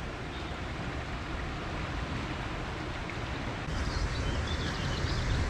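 Steady outdoor background noise, mostly a low rumble, with faint high chirps joining from about four seconds in.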